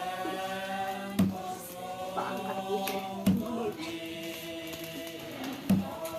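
Chanting voices holding long notes, with a sharp knock about every two seconds.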